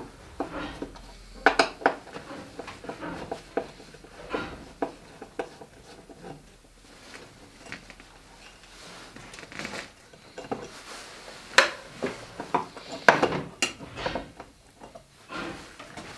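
Small metal parts and tools clinking and knocking as they are handled, in irregular taps with a few louder clacks about a second and a half in and twice near the end.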